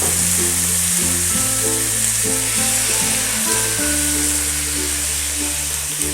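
Chicken pieces sizzling and frying in hot oil with dried red chillies, as a steady hiss, with background music playing a slow melody of low notes.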